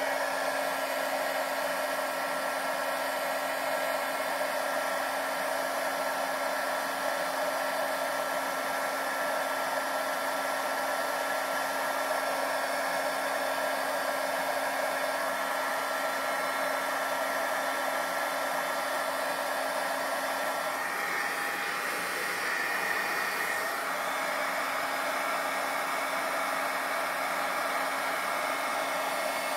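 Handheld embossing heat tool running steadily, its fan blowing hot air with a low hum and a higher whine, melting embossing powder. The tone of the hum shifts for a few seconds about two-thirds of the way through, then settles again.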